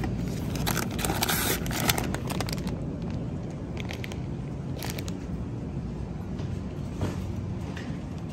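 Plastic bag of shredded cheese crinkling in the hand as it is lifted off a shelf and put into a shopping cart, in two spells of crackling, over a steady low background hum.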